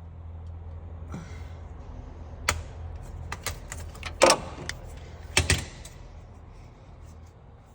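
Several sharp knocks and clicks of tools and metal engine parts being handled, the loudest about four seconds in, over a steady low hum.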